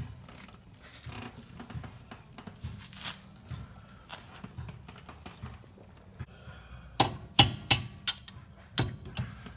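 Metal tools and brake caliper hardware clinking as the pad retaining pins and spring are worked out of a rear brake caliper: light scattered taps, then a quick cluster of five or six sharp metallic clicks with a brief ring about seven to nine seconds in.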